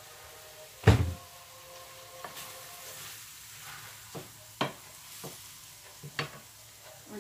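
Diced pork frying in a Saladmaster stainless steel skillet with a steady low sizzle, stirred with a wooden spoon that knocks against the pan several times. There is one loud knock about a second in.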